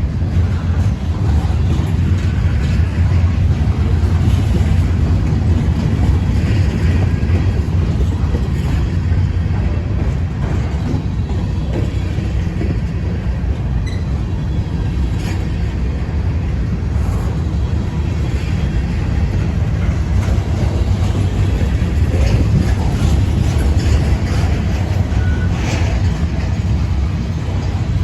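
Freight train rolling past: a steady low rumble of wheels on rail with faint scattered clicks.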